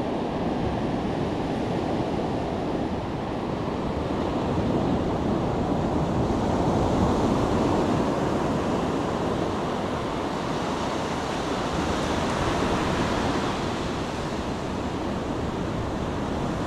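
Ocean surf breaking on the beach and washing up the sand: a steady rushing that swells and eases as the waves come in.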